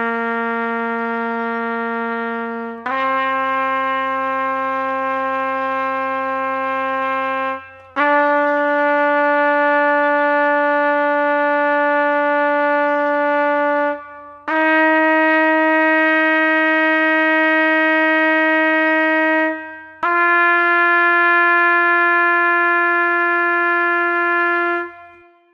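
Trumpet playing long, steady held notes, five in all, each about five seconds long with a short break between, stepping up in pitch from note to note like a slow rising scale; the last note dies away near the end.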